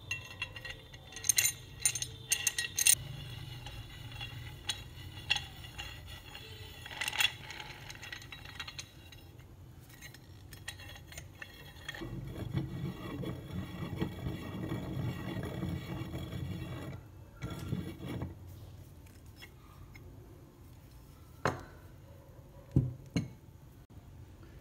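Steel parts of a forged C-clamp being handled and the threaded screw fitted into the frame: light metal clicks and clinks, then several seconds of steady scraping as the screw turns through the threads, and a few sharp knocks near the end.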